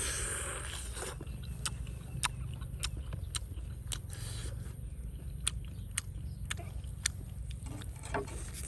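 Someone chewing roasted duck, with sharp crunching clicks one or two a second over a steady low background hum.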